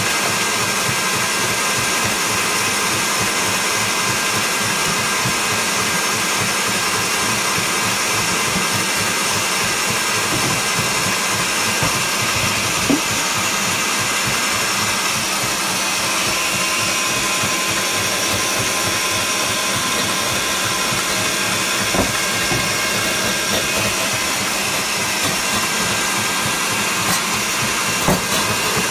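Kenwood stand mixer running steadily, whisking egg whites in its steel bowl. A few sharp clicks are heard over it, three times.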